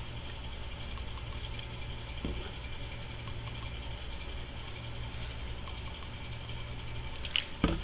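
A steady, low mechanical hum with a faint high whine above it, with a couple of sharp clicks near the end.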